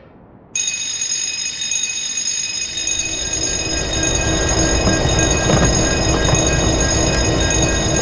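Train approaching: a low rumble builds from about three seconds in and grows louder, under a steady high ringing that starts abruptly about half a second in.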